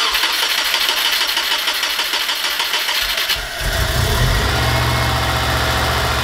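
A 2001 Subaru Impreza 2.5RS's 2.5-litre flat-four engine cranking on the starter for about three seconds, then catching and settling into a steady idle.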